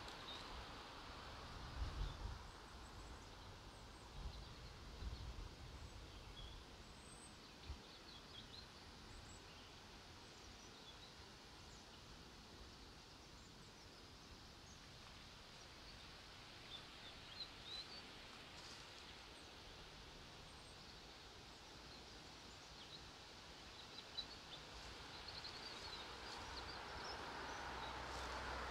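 Quiet outdoor ambience: faint, scattered bird chirps over a low haze of traffic noise that grows louder near the end, with a few low thumps in the first several seconds.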